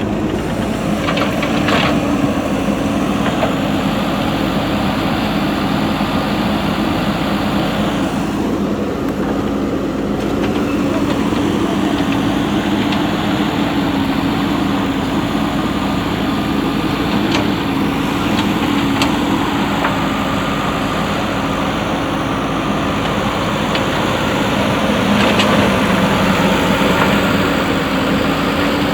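Diesel engine of a JCB 3DX backhoe loader running steadily while working, with a few brief knocks over it.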